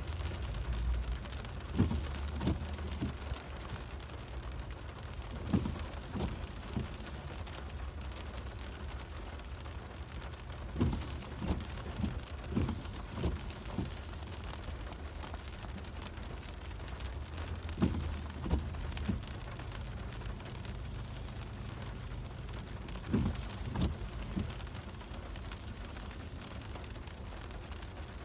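Rain drumming on a car's roof and windshield, heard from inside the cabin over the car's steady low rumble, with clusters of louder, irregular taps every few seconds.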